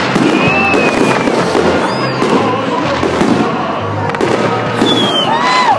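Fireworks salute going off overhead: a dense, continuous crackle of shell bursts.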